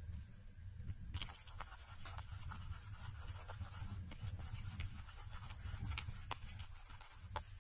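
Metal spoon stirring egg and flour in a plastic bowl: irregular scrapes and clicks of the spoon against the bowl, starting about a second in, over a low steady rumble.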